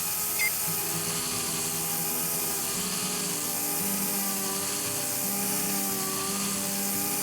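A power tool, likely used in bodywork prep work, runs steadily with an even whir and hiss, its pitch wavering slightly.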